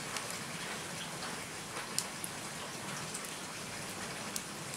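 Wood fire crackling: a steady hiss with a few sharp pops now and then.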